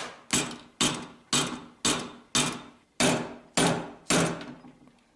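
About ten evenly spaced hammer taps, roughly two a second, each ringing briefly: a rear sight being knocked into the dovetail of a Smith & Wesson M&P pistol slide held in a vise.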